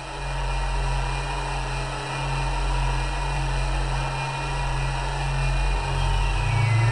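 Passenger ferry's diesel engines idling at the dock: a steady low hum.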